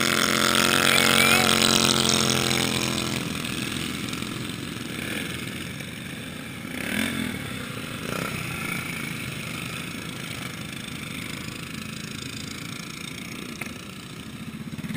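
Racing lawn tractor engines on an ice track: one runs loud and close, then fades away about three seconds in, leaving the steady hum of other mowers running further off around the course.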